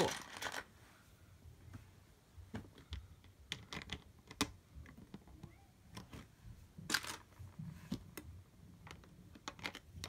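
Plastic Lego bricks clicking and clattering as small pieces are picked out of a bin of loose bricks and set onto a baseplate: scattered light clicks, with a louder one about seven seconds in.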